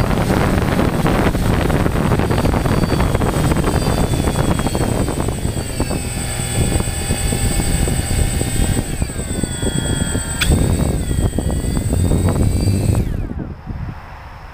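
DJI Phantom quadcopter's motors and propellers running at ground level, their whine shifting up and down in pitch, with a sharp click about ten seconds in. Near the end the motors wind down with a falling whine and stop, ending an automatic landing after the flight ran too long on the battery.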